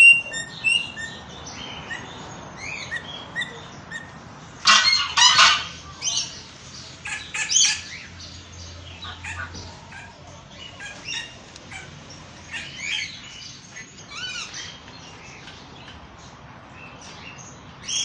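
Captive parrots calling in their aviary cages: many short chirps and whistles, broken by loud harsh screeches about five seconds in and again near eight seconds.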